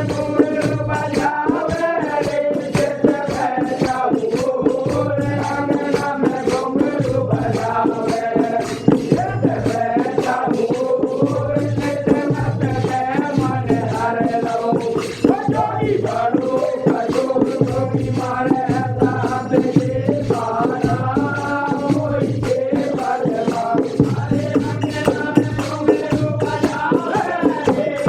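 Devotional bhajan music: a melodic line over fast, steady percussion, with a deep beat recurring about every second and a half.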